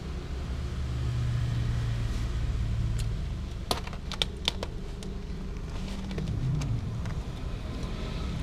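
Young tabby cat eating dry kibble close to the microphone: a low steady rumble runs under it, and a few sharp crunches and clicks of kibble come a little before the middle.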